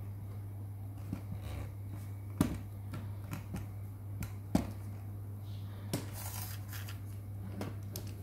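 Irregular clicks and knocks from an aluminium camera tripod stand being handled, two of them louder, over a steady low electrical hum.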